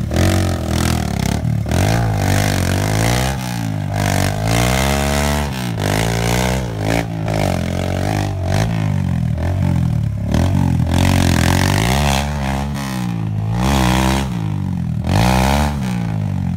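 Kawasaki KLX dirt bike's single-cylinder four-stroke engine revving up and dropping back again and again in short bursts of throttle as it climbs over loose rocks.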